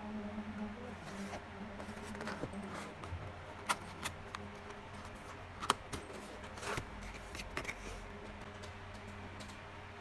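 Hands handling a boxed set of plastic keycaps and its packaging: scattered light clicks and rustling, with two sharper clicks a few seconds in and about two seconds apart, over a faint steady hum.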